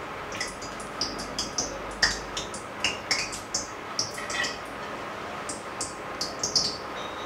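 Cooking oil poured from a steel ladle into an empty kadai, followed by a run of short light clinks and ticks as the ladle and pan are handled.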